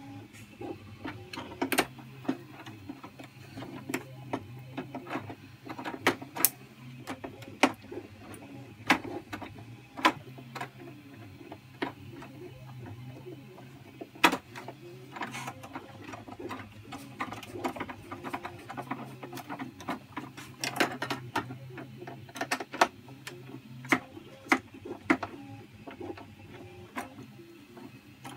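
Screwdriver driving short self-tapping screws into 3D-printed plastic: irregular sharp clicks and small scrapes as the screw is turned and the driver regripped, over a steady low hum.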